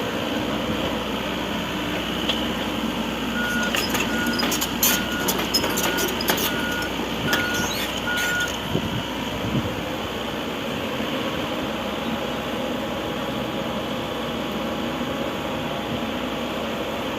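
Heavy diesel machinery running steadily, with a backup or travel alarm giving about eight short, even beeps over some five seconds. Sharp knocks sound while the alarm beeps.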